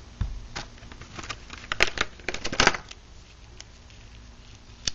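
Clear plastic clamshell packaging crackling and clicking as it is handled and the instruction leaflet is pulled out of it. A dense run of sharp crackles comes about two seconds in, and a single click near the end.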